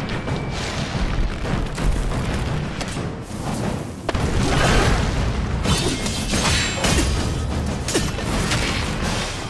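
Booming impact and explosion effects over dramatic score, like an animated fight scene. It gets suddenly louder about four seconds in, with sharp hits in the second half.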